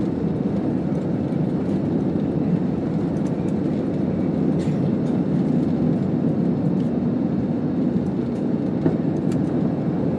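Cabin noise of a commercial airliner taking off: a steady, even rumble of engines and rushing air, with a few faint ticks from the cabin.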